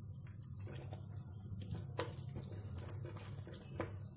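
Metal spoon stirring thick creamy chicken gravy in a non-stick pan: soft wet squelching, with a couple of light clicks of the spoon against the pan, over a steady low hum.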